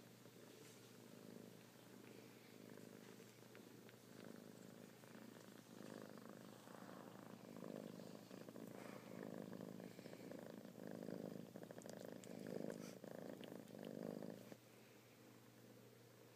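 Soft cat purring that rises and falls with each breath, growing stronger partway through and dropping off shortly before the end.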